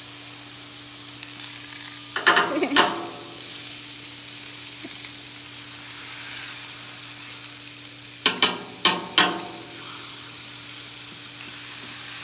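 Hot dogs and beef patties sizzling steadily on a Blackstone flat-top griddle. Two bursts of sharp metal clanks and scrapes, about two seconds in and about eight seconds in, come from a round burger smasher being pressed down onto the steel griddle top.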